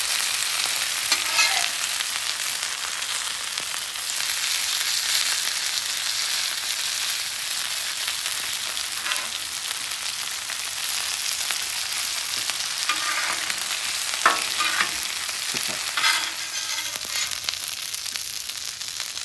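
Hash-brown-crusted walleye fillets sizzling steadily in butter and avocado oil on a hot flat-top griddle as they are flipped. A metal spatula scrapes and clacks on the steel surface a few times, loudest about fourteen seconds in.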